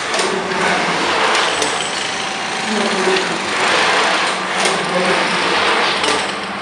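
CNC plasma table running, with short pitched whirs from its gantry drive motors that come and go over a steady hiss, and a few sharp clicks.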